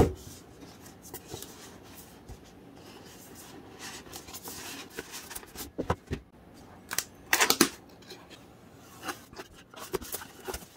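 Cardboard box being handled and opened: scattered rubbing, scraping and tapping of cardboard, with the loudest scrape a little past halfway.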